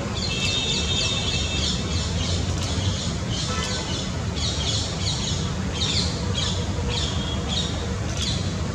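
Small birds chirping and twittering continuously over a steady low rumble.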